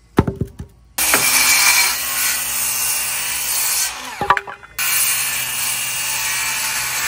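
Milwaukee cordless circular saw cutting through pine lumber. After a few knocks it starts about a second in and runs steadily through the wood. It stops briefly with a couple of knocks just past the middle, then starts again for another cut.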